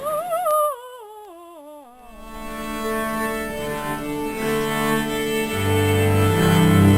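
Music on bowed strings. It opens with a single line sliding down in pitch with vibrato over about two seconds, then moves into sustained chords, with a low bass note coming in near the end.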